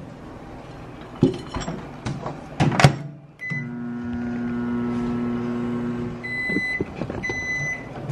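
Toshiba microwave oven warming food: a few clicks and a sharp knock, a short keypad beep, then the oven hums steadily for about three seconds and stops, followed by two long end-of-cycle beeps near the end.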